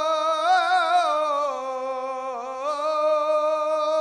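A man's solo unaccompanied voice chanting an Islamic ibtihal, holding one long drawn-out vowel. The note is ornamented with quick trills about half a second in and again near three seconds, and the pitch dips briefly in between.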